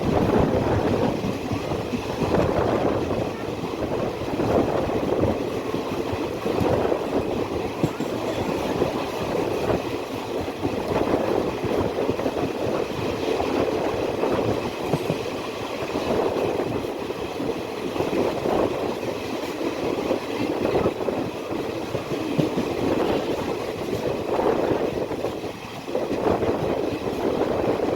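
Passenger train running along the line, heard from aboard a coach: a continuous rumble and rattle of wheels on the rails that swells and eases.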